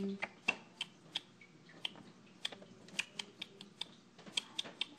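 Light, irregular clicks and taps of small plastic Littlest Pet Shop toy figures being handled close to the microphone, a few clicks a second with short pauses.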